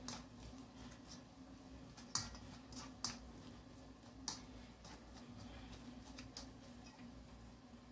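Boiled potatoes being mashed with a fork in a stainless steel bowl: faint soft squishing with a few scattered sharp clicks of the fork against the metal, over a faint steady hum.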